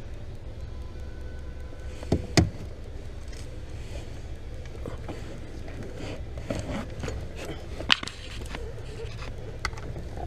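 A few sharp knocks and clicks, two close together about two seconds in and one near eight seconds, over a steady low hum.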